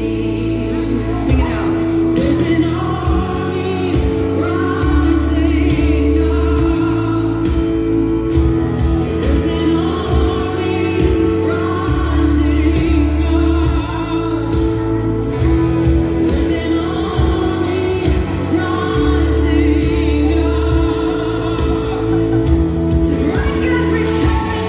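A song with a singing voice over steady held bass notes.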